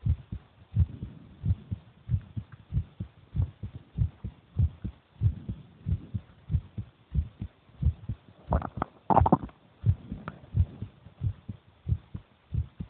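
A person's heartbeat: steady, paired low thumps at about 90 beats a minute. About two-thirds of the way through, a brief scraping rustle stands out above the beats.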